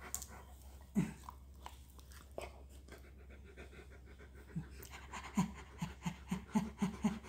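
Large shepherd-type dog panting with its mouth open: short quick breaths at about four a second, picking up in the second half and getting stronger toward the end. A single short knock about a second in.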